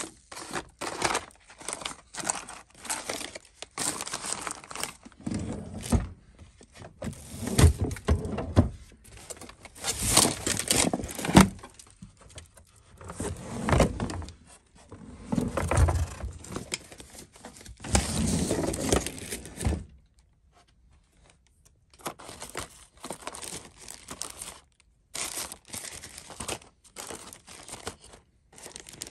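Hands rummaging through a cluttered drawer of packaged items: plastic packaging crinkling and small boxed and bagged hardware rattling and knocking, in fits and starts. There is a pause of about two seconds two-thirds of the way through, then lighter rustling.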